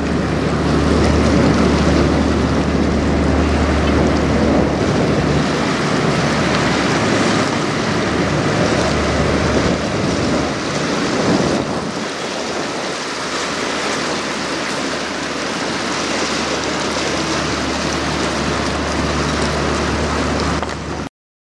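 Wind on the microphone and choppy river water lapping against a seawall, with the low steady drone of the CSL Welland bulk freighter's engine under it. The drone fades away about halfway through, and all sound cuts off just before the end.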